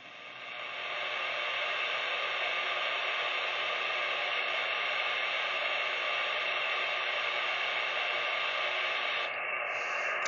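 CB radio receiver hissing with static: a steady rush of noise that swells up over the first second and then holds, with no voice coming through.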